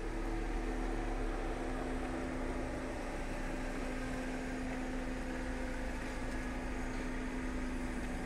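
A steady machine hum with a constant low drone over even background noise.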